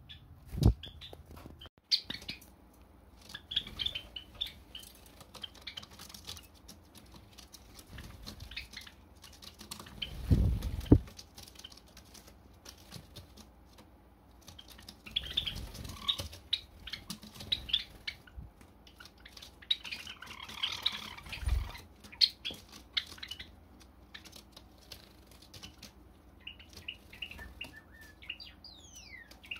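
Pet Java sparrows giving short scattered chirps, with wing flaps among them and a few falling calls near the end. Three loud low thuds stand out, about a second in, around ten seconds and around twenty-one seconds.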